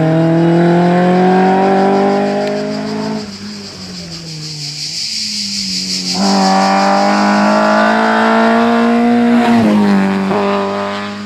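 Historic rally car engine at full throttle, climbing in pitch, then cut off sharply about three seconds in as the driver lifts for a corner. It picks up again hard about six seconds in and climbs steadily. There is a brief dip near the end, like a quick gear change, before the car pulls away and fades.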